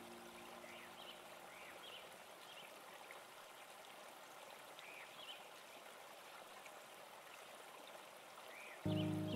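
Faint steady rushing like a flowing stream, with repeated short high chirps over it. Background music starts suddenly near the end and is the loudest sound.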